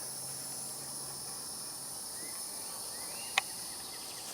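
Steady high-pitched insect drone, with a single sharp click about three and a half seconds in.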